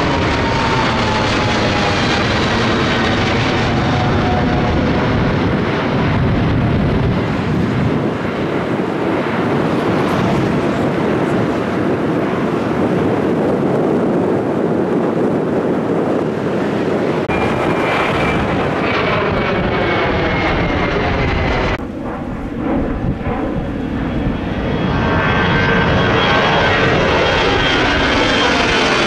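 Jet engines of a departing twin-engine Boeing 777 climbing out overhead: the engine tone falls in pitch as it passes, then settles into a steady rumble. About 22 seconds in the sound cuts, and a four-engine Airbus A340 grows louder as it climbs toward overhead.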